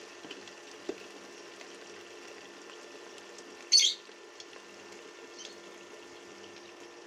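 Chicken and onions frying in oil in a pan, a steady sizzle. A brief sharp noise cuts in just under four seconds in.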